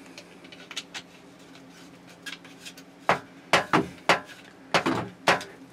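Clicks and clinks of a handheld shower head and its hose fitting knocking together as they are lined up to be screwed on: a few faint clicks, then a run of sharp ones in the second half.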